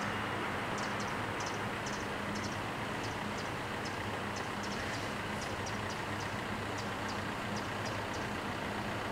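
Steady low engine hum over a wide hiss, with faint short high chirps repeating two or three times a second.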